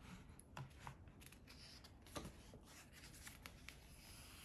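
Faint rustles and soft taps of a hardcover picture book's paper pages being handled and turned, a few brief sounds a second or so apart.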